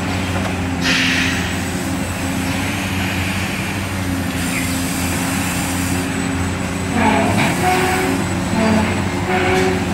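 Huina 1594 RC model excavator running as it digs, a steady mechanical hum from its motors with the bucket scraping through sand about a second in and again near the end.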